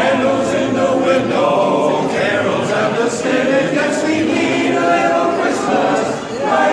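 Men's a cappella chorus singing barbershop-style close harmony, with no instruments, and a brief breath pause near the end.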